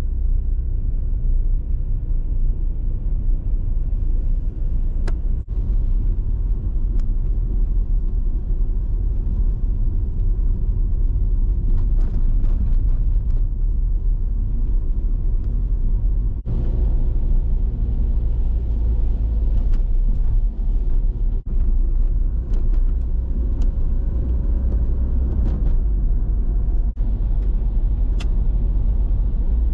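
A car driving at road speed, heard from inside the cabin: a steady low rumble of engine and tyre noise, broken a few times by brief dips.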